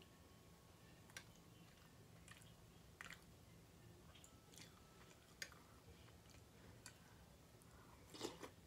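Quiet eating sounds of someone chewing spoonfuls of molokhia, the soupy Jew's mallow stew: a few faint, separate mouth clicks and smacks, then a louder, slightly longer eating sound near the end as another spoonful goes into the mouth.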